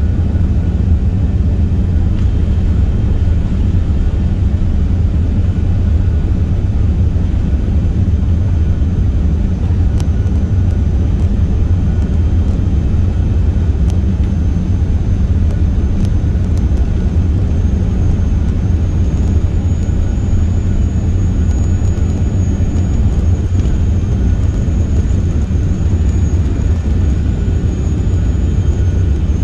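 Steady low rumble inside the cabin of an Airbus A380-861 on the ground, its Engine Alliance GP7200 engines and rolling gear heard through the fuselage. A faint high whine steps up slightly about twenty seconds in.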